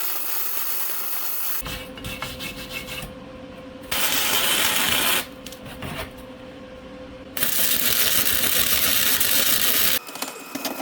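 Flux-core wire welder laying three short weld beads, each a steady hiss that starts and stops abruptly; the last and longest runs about two and a half seconds. The welder is turned up for 3/16-inch steel while welding gasless .035 flux-core wire into hardened leaf spring, pipe and rebar.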